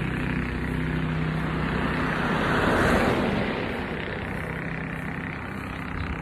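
A motor vehicle going past, its engine and road noise swelling to the loudest point about three seconds in and then fading.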